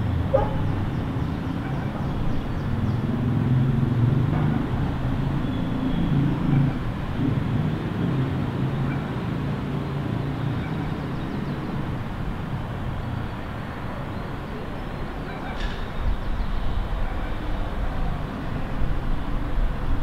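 Steady low rumble of city road traffic from the streets below, swelling and easing as cars pass.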